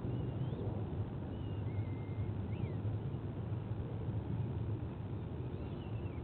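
Steady low rumble of outdoor background noise, with several faint, short high chirps of birds scattered through it.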